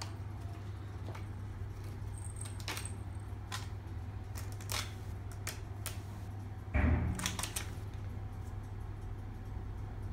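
Siamese kittens' claws catching and scratching on a rope-wrapped scratching post as one climbs it: scattered light clicks, with a heavier thump and brief scrabble about seven seconds in, the loudest sound.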